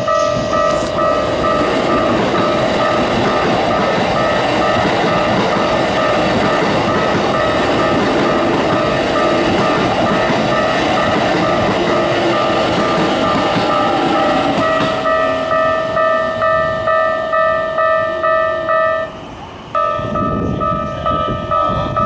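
Level-crossing warning bell ringing steadily at about two strikes a second while a Keikyu 1000-series train runs past, its wheels rumbling over the rails. The sound drops out briefly near the end, then the bell carries on.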